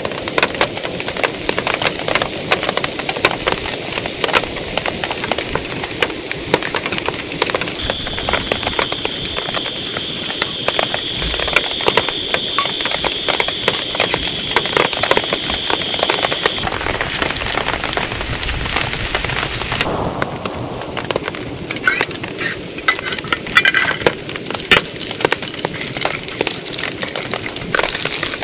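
Heavy rain falling steadily, a dense patter of countless drops. For several seconds in the middle, a faint, steady, high-pitched tone sounds over it.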